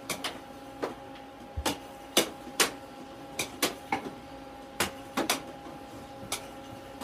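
Air hockey puck clacking against mallets and the table's rails, about a dozen sharp hits at uneven intervals during a rally. Underneath runs a steady hum, the table's air blower.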